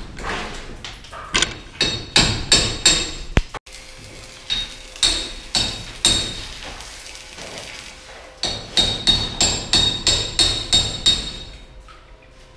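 Hand hammer blows in quick runs of about two to three strikes a second, each with a ringing metallic note, coming in three bursts with short pauses between and stopping near the end.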